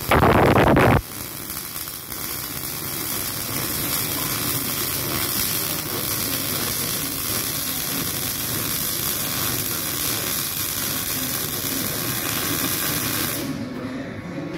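MIG welding arc running with 0.9 mm wire on steel tubing: a steady hiss that stops about a second before the end. It opens with a much louder burst lasting about a second.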